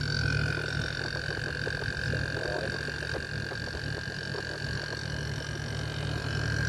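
Panasonic inverter air conditioner's outdoor unit running: a steady low hum from the compressor and fan, with a thin steady high whine over it.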